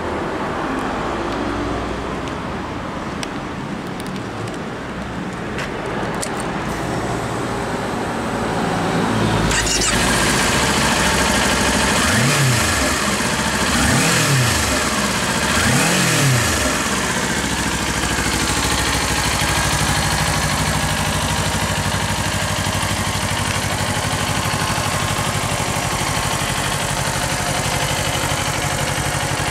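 Kawasaki Ninja 400's 399 cc parallel-twin engine idling through its stock exhaust, blipped three times in quick succession around the middle, each rev rising and falling back before it settles to a steady idle.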